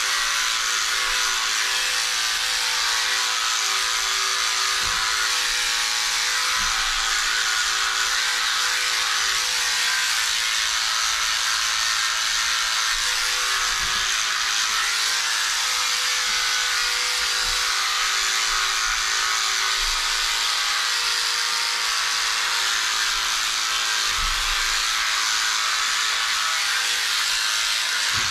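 Cordless electric hair trimmer running steadily while trimming hair along the side of the head, with a few soft low knocks.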